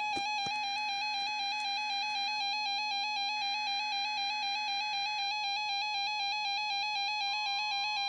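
RadioShack 12-521 weather radio sounding its own alert: a loud, rapidly warbling electronic tone, set off by the Required Weekly Test code. Near the end the broadcast's steady 1050 Hz NWS warning alarm tone comes in faintly underneath.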